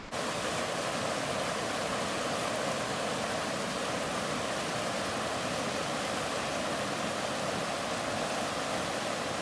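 Rushing water of river rapids: a steady, even rush that cuts in abruptly and holds level.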